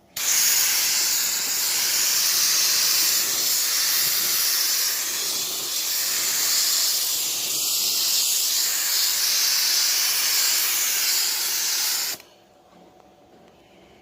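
Loud steady hiss lasting about twelve seconds, then cutting off suddenly.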